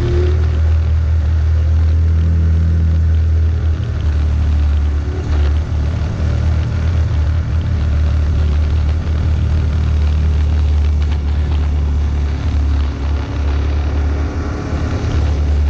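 Vehicle engine running steadily at low speed over a rough dirt track, a loud low rumble broken by brief dips and occasional knocks and rattles from the bumps.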